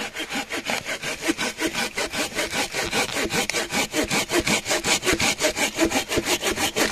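A saw cutting through dry wood by hand in fast, even back-and-forth strokes, the blade ringing briefly on each stroke.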